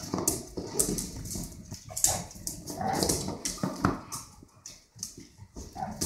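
A dog and a puppy play-fighting: short yips and whimpers mixed with scuffling and paws clattering on a tile floor, in uneven bursts.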